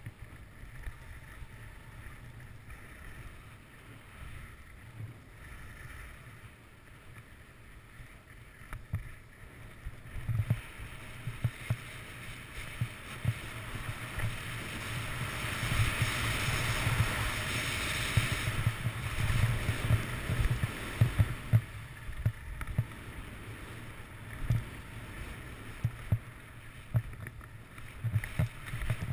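Skis sliding and scraping over packed snow with a rushing hiss, mixed with wind rumbling and knocking on a GoPro microphone. The hiss swells loudest about halfway through, then eases off.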